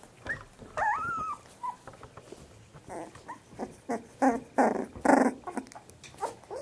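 Young Pembroke Welsh corgi puppies, about 25 days old, giving thin high squeaks and whines that waver in pitch near the start. Then comes a run of short rough puppy growls, loudest about four to five seconds in.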